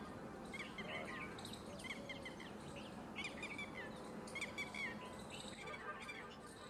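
Birds chirping: runs of short, quick chirps that come back every second or so over a steady outdoor background.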